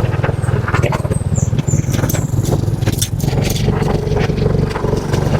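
A vehicle engine running steadily on the move, with a fast, even beat of firing pulses and scattered light clicks.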